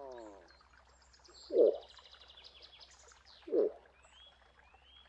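Moose calling: a long moaning call falls away at the start, then two short, loud grunts about two seconds apart. Birds chirp faintly in the background.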